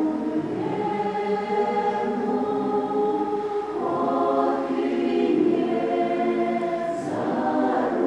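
Mixed folk choir of men and women singing a Russian folk song in several parts, holding long chords that change every few seconds.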